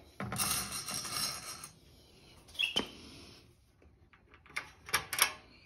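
Hands working steel bolt hardware on corrugated metal garden-bed panels: a second or so of scraping and rustling, a single light metallic tick, then a few sharp metal clinks near the end as a bolt and nut are fitted.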